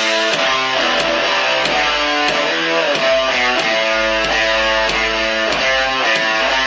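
Channel intro music with held chords and a steady beat, about three beats every two seconds.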